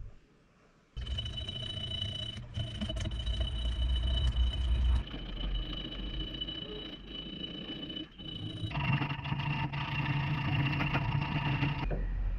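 A motor running steadily with a constant hum and whine. It starts abruptly about a second in and shifts suddenly to a different, fuller tone about nine seconds in.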